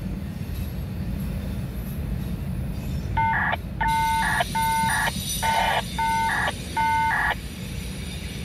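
Loaded autorack freight cars rolling past with a steady low rumble. About three seconds in, a run of about six short multi-tone beeps sounds over four seconds and is the loudest thing heard.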